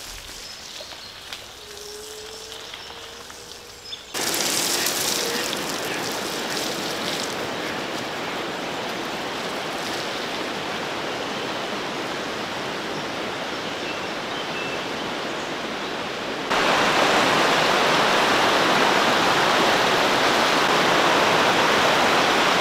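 Steady rushing noise of falling or running water. It jumps abruptly louder about four seconds in and again about sixteen seconds in.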